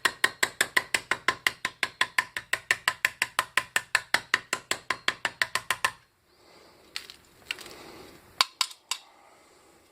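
Hammer tapping rapidly and evenly on a hollow sterling silver handle, about five or six light strikes a second, shattering the resin filler inside. The tapping stops about six seconds in, followed by a few lighter knocks and handling noise.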